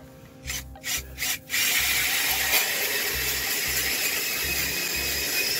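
Cordless drill turning an ice auger, boring into ice: after a few short knocks, it starts about a second and a half in as a steady grinding scrape with a high motor whine.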